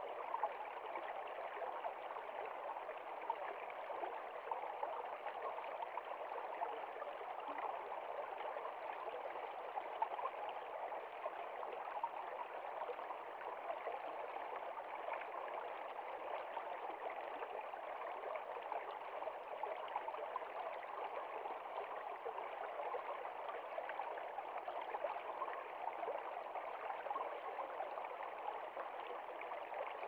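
Shallow creek running over stones: a steady rush of flowing water with small irregular splashes.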